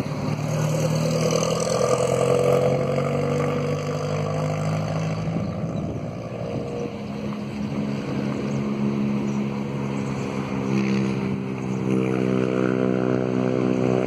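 A vehicle engine running steadily, its pitch rising and falling slowly, then cutting off abruptly at the end.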